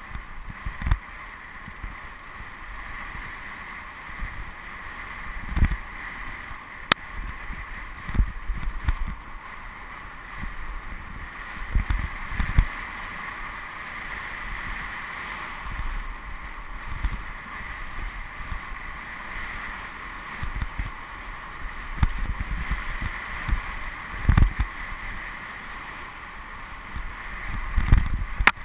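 Mountain bike riding fast down a dry dirt singletrack, heard from a point-of-view camera on the rider or bike: a steady rush of wind and tyre noise, with dull low thumps every few seconds as the bike hits bumps.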